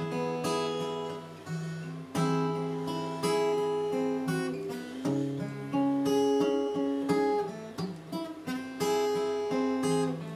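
Solo acoustic guitar playing a song's introduction: a run of strummed chords and picked notes, each ringing on into the next.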